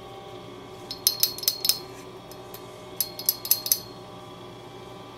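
Light metallic clicks and clinks in two short, irregular flurries, about a second in and again about three seconds in, from a screwdriver and small metal parts being handled on a workbench. A steady faint hum runs underneath.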